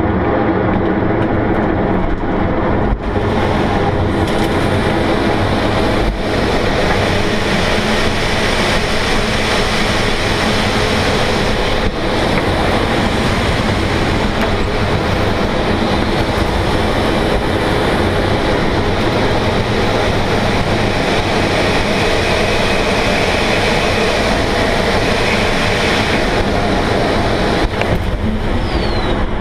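Air rushing through and around the cockpit of an MDM-1 Fox aerobatic glider in flight: a loud, steady noise with no engine, broken by a few brief knocks.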